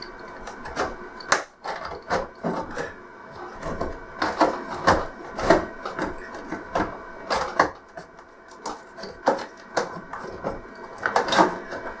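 Plastic clips on an LCD TV's front bezel clicking and snapping loose as the bezel is prised off by hand, with irregular plastic clicks and rattles throughout.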